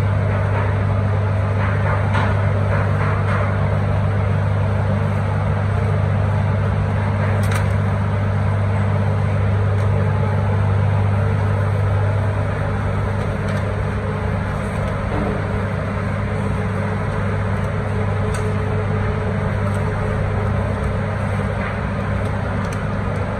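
A steady low mechanical hum from a motor or fan runs throughout. A few faint light clicks come from foil food trays being handled.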